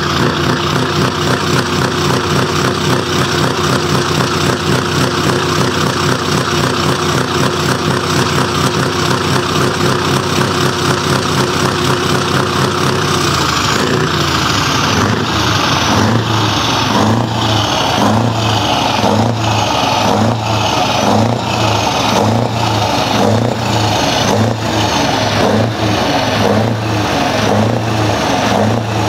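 Scania V8 truck engine running loud through its four chrome side-exit exhaust pipes, held at a steady speed. About halfway through the revs fall away and it is blipped on the throttle again and again, about once a second, each rev rising and falling back.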